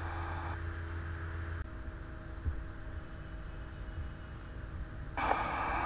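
Background hum and hiss of a voice recording, with no speech. The hiss drops away about half a second in, the hum changes about a second and a half in, and the hiss returns near the end.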